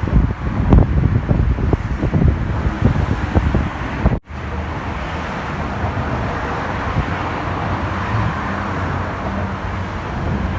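Wind buffeting the microphone over road-traffic rumble, with uneven low thumps for the first few seconds. The sound drops out for an instant about four seconds in, then continues as a steadier traffic and wind rumble.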